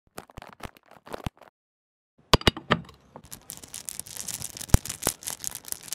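A packaged chainsaw chain being handled: a few light clicks, then a couple of seconds in a dense run of crinkling packaging and rattling chain links, with a few sharper knocks.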